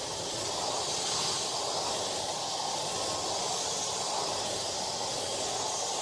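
Hand-held hair dryer running steadily: an even, unbroken hiss of blown air.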